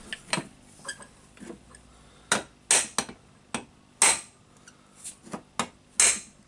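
A hammer striking a punch in a series of sharp metallic knocks, irregularly spaced and coming more often after the first couple of seconds, driving the armature out of a Hitachi H45MR demolition hammer's housing.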